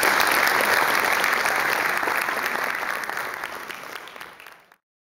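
Audience applauding, a dense patter of clapping that thins and fades over the last couple of seconds, then cuts off suddenly.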